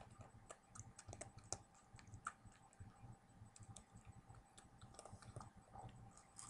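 A cat eating dry kibble fast from a metal bowl: faint, quick, irregular crunches and clicks of kibble on the bowl.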